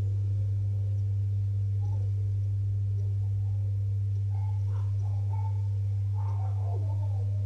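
A steady low hum, with faint voices in the background now and then in the second half.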